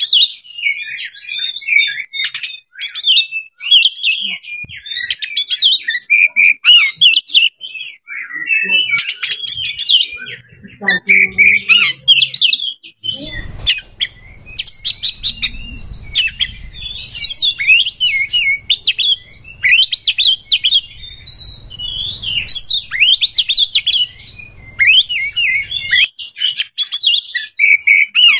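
Oriental magpie-robin singing a fast, varied, unbroken song of whistles, chirps and sharp clicks, laced with mimicked phrases.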